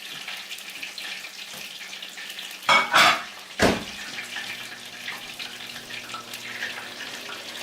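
Food frying in hot vegetable oil, a steady hissing sizzle. About three seconds in there is a brief louder noise and then a sharp knock, and a low steady hum comes in about a second later.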